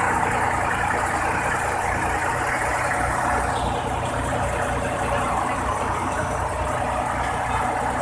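Heavy diesel engine idling steadily, with a low, even pulsing rumble.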